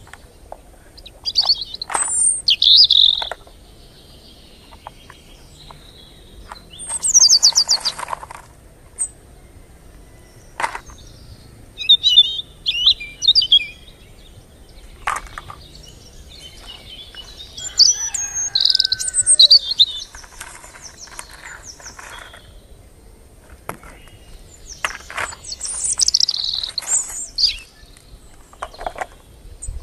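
Small birds chirping in short, quick phrases every few seconds, with scattered sharp clicks and rustles between them.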